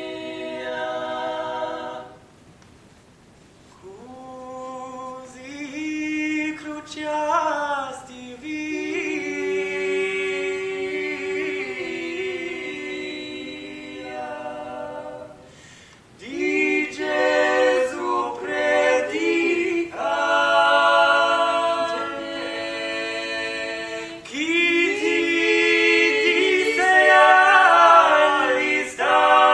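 Small mixed-voice a cappella ensemble singing sustained polyphonic chords in several parts. It sings in phrases, breaking off briefly about two seconds in and again just past the middle.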